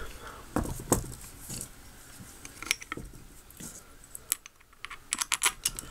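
Small metal clicks and knocks as the float bowl cover of a Mikuni Solex PHH carburetor is handled and its centre bolt is turned with a hex bit. Scattered single clicks are followed by a quick run of clicks near the end.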